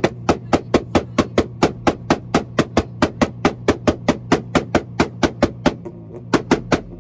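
Acura Integra's engine held on a two-step launch limiter: a steady engine drone punctuated by loud exhaust pops and bangs about four times a second. The pops stop near the end.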